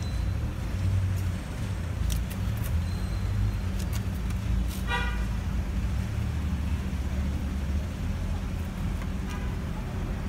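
Low, steady rumble of road traffic, with one short car-horn toot about five seconds in and a few faint clicks.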